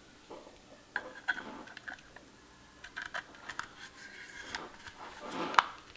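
Hard plastic clicks and rattles as a sewing machine foot control cord's black plug and white terminal block are handled and pushed together, with the sharpest click near the end.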